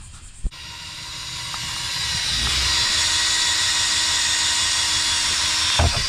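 Power drill running under load while working holes for the shifter plate in the car's floor pan. The loud, hiss-like whir starts suddenly about half a second in, builds over a couple of seconds, then holds steady.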